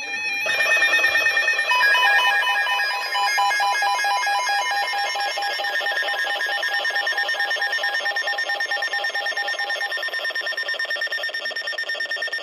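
Electronic weather-alert alarm: a fast, stepping warble of several high tones that starts about half a second in and sounds almost to the end. It marks the start of a new weather warning.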